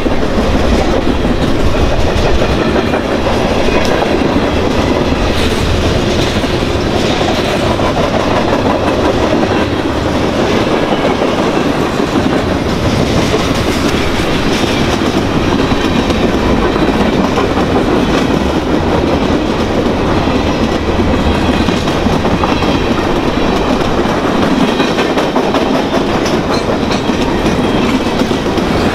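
Freight train passing on the adjacent track, a string of tank cars and then steel gondola cars, loud and steady, its wheels clacking over the rails.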